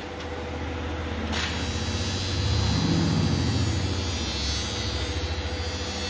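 An engine or motor running steadily with a low, rapidly pulsing drone, growing louder about halfway through and then easing off.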